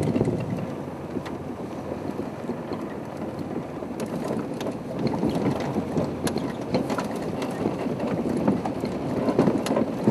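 Game-drive vehicle's engine running as it moves forward slowly, with scattered clicks and rattles and wind buffeting the microphone.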